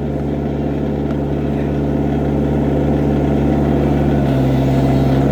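Excavator's diesel engine running steadily, its note shifting up slightly about four seconds in.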